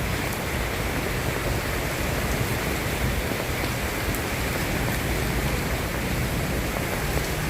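Steady rain falling, an even dense hiss with faint scattered drop ticks.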